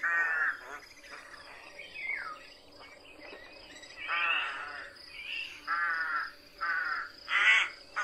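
Western jackdaw giving a series of short, harsh 'tchak' calls, about seven in all, coming closer together in the second half. The audio is processed as 8D sound, panned around the listener.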